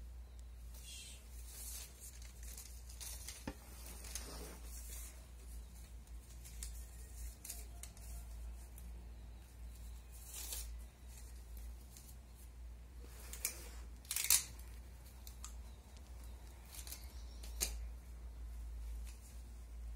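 Folded newspaper strips rustling and crinkling in brief, scattered bursts as they are handled, the loudest a little past halfway. A low steady hum runs underneath.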